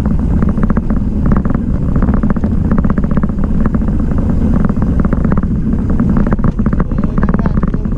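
Wind buffeting and road rumble on a camera carried on a mountain bike rolling fast over a rough, cracked paved lane, with a dense rapid clatter from the bumps.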